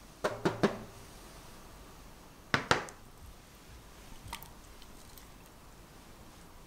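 Stainless steel ring mold knocked down onto a baking tray: three quick clacks, then two more about two seconds later. A few faint clicks follow as thick lemon curd is poured into the ring.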